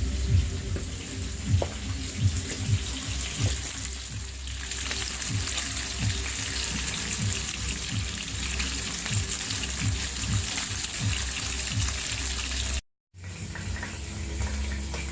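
Background music with a regular low beat over a steady hiss like running water. It cuts out for a moment near the end and resumes.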